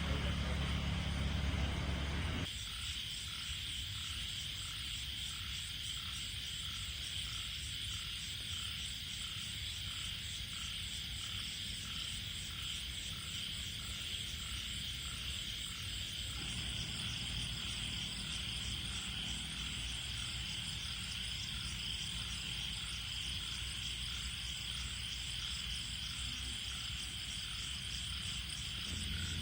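Night chorus of insects chirring steadily, with a short call repeating about one and a half times a second like a frog, over a low rumble that drops away about two seconds in and fills in again about halfway through.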